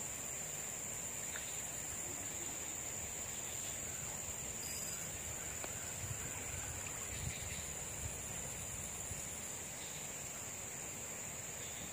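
Insects droning steadily with one high, unbroken note. There are a few faint low thumps about six to eight seconds in.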